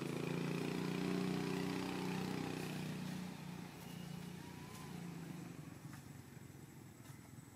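A vehicle engine running steadily, loudest in the first few seconds and then fading away as it moves off.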